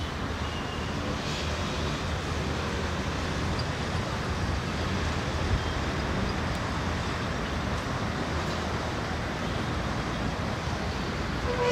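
Steady low engine rumble mixed with traffic noise, from a Bangladesh Railway diesel locomotive approaching at a distance. A horn starts sounding at the very end.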